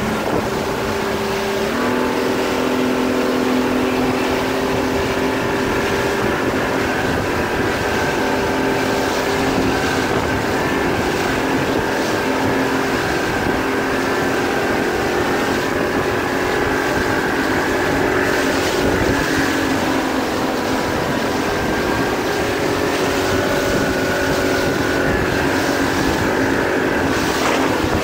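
A motorboat's engine running steadily at speed, stepping up in pitch about two seconds in, with wind on the microphone.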